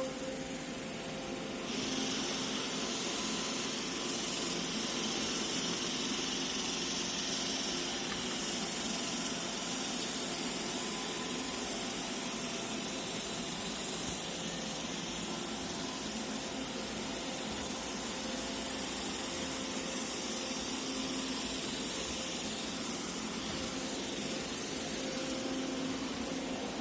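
iRobot Roomba e5 robot vacuum running: a steady motor hum under a suction hiss that comes up about two seconds in and holds.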